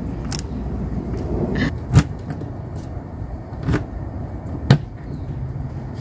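RV entry door being shut and its new keypad lock and handle worked: a handful of sharp latch clicks and knocks, the loudest about two seconds in and just before five seconds, over a steady low rumble.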